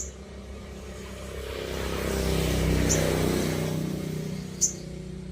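A motor vehicle passing by, its engine and road noise swelling to a peak about halfway through and fading away. Three short high bird chirps cut through it: one at the start, one about three seconds in, one near the end.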